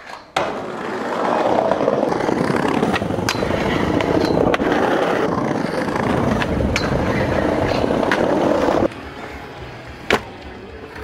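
Skateboard wheels rolling loudly over paving stones, with sharp clacks as they cross the joints. About nine seconds in it cuts to quieter rolling on smooth concrete, with one sharp clack of the board.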